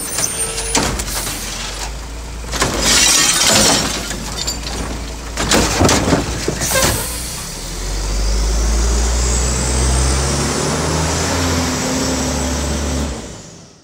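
Trash, including glass, crashing and clattering into a Mack front-loader garbage truck's hopper for several seconds. The truck's diesel engine then revs up and holds a steady, slowly rising drone.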